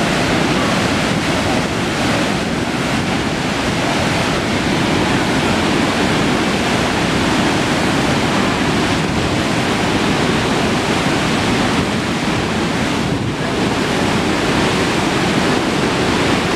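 Floodwater rushing through an overflowing dam spillway: a loud, steady rush of churning water that does not let up.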